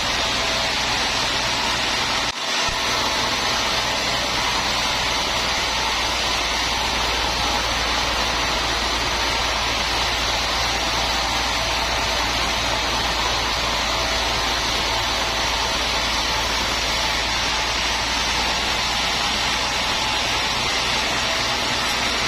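Sawmill machinery running steadily, a constant mechanical drone with a brief drop about two and a half seconds in.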